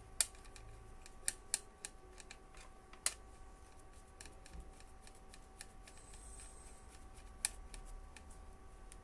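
A handful of sharp, irregular clicks and taps of a screwdriver and wire being worked into a screw terminal, over a faint steady hum.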